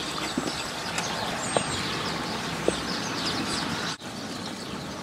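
Outdoor ambience: small birds chirping over a steady hiss, with a couple of soft knocks.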